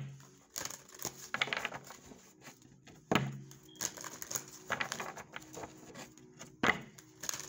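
A deck of cards being shuffled by hand: soft clicking and pattering of the cards, with a sharper tap about three seconds in and another near the end.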